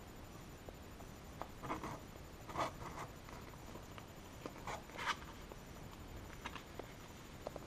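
Pug puppies shifting on soft bedding: a handful of short scratching and rustling sounds as a puppy rolls over and crawls across the blanket, the loudest about two and a half and five seconds in.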